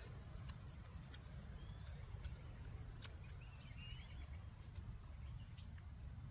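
Faint outdoor background: a steady low rumble with a few soft clicks and two or three faint, short bird chirps.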